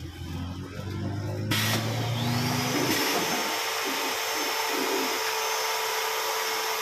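Automatic pouch packing machine running with a loud, steady whooshing hiss that sets in about a second and a half in. A high whine rises soon after and then holds steady, while background music fades out under it.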